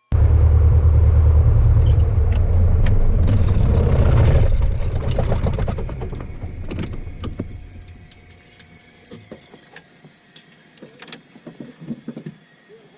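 Cessna 172K Skyhawk's four-cylinder Lycoming engine idling, then shut down about four and a half seconds in, the propeller winding down over the next few seconds. Scattered clicks and rattles follow.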